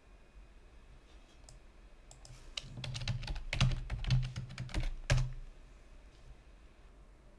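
Typing on a computer keyboard: a few scattered keystrokes, then a quick run of them about halfway through as a password is entered, ending in a sharper click.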